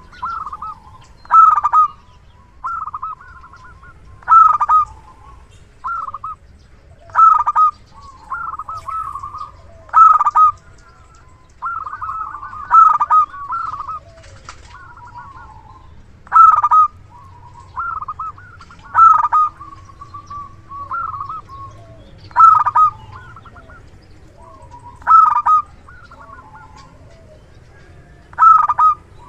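Zebra dove (perkutut) singing loudly, a decoy bird's song of short, clipped cooing phrases repeated every one and a half to three seconds.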